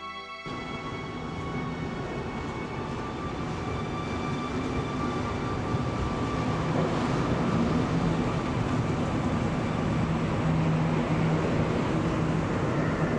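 Electric passenger train arriving at an underground station platform. Its rumble grows steadily louder as it comes out of the tunnel and runs in alongside the platform, with a low steady hum in the last few seconds, echoing in the enclosed station.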